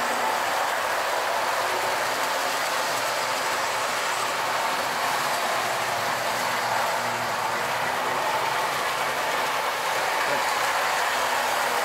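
O-gauge toy train, a diesel locomotive pulling a string of freight cars, running steadily around three-rail track: a continuous, even whir and rumble of the motor and wheels on the rails.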